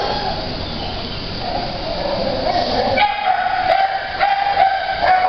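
Dogs in shelter kennels barking and howling together, sounding hollow and echoing. About three seconds in, a sustained wavering howl comes in, broken by repeated barks.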